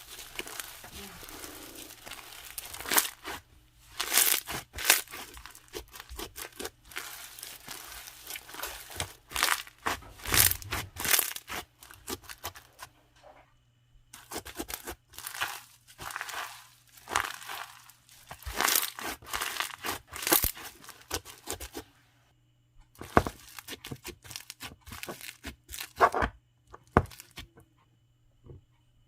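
Hands squishing, stretching and popping a translucent slime, giving irregular crinkly, crackling tearing sounds in bursts with a couple of short pauses.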